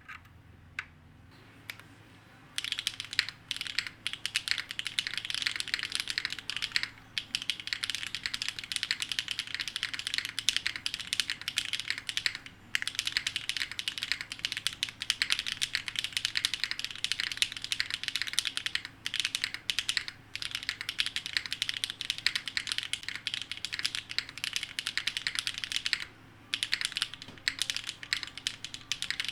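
Typing on a Solaris 60% mechanical keyboard with Akko x HMX Cilantro tactile switches, top-mounted on a polypropylene plate: dense keystroke clacking that begins about two and a half seconds in and runs on with a few short pauses.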